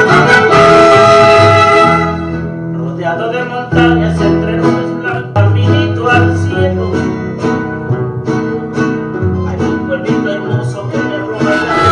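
String-band music, guitars and violin. A loud strummed chord is held for about two seconds, then comes lighter plucked playing over a moving bass line, and a bright strummed chord returns near the end.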